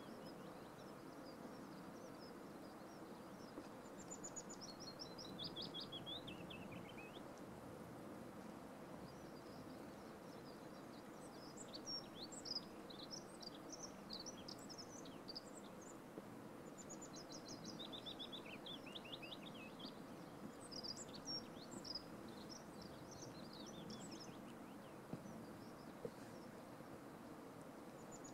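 Small songbird singing over a quiet, steady outdoor rush: three times a fast trill of notes falling steeply in pitch, with scattered short high chirps in between.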